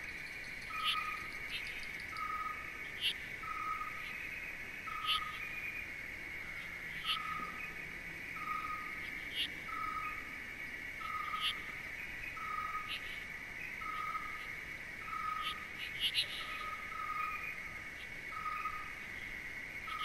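A nature ambience: a steady high insect drone, with a short note repeating about once a second and scattered sharp clicks.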